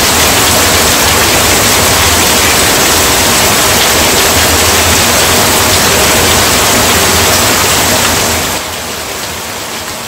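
Heavy rain pouring down onto wet ground and vegetation: a steady, dense hiss that drops to a softer level about eight and a half seconds in.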